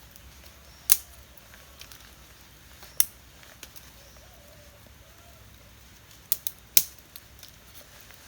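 A few sharp, short clicks or snaps over a quiet background: one about a second in, one about three seconds in, and a quick group of three near the end.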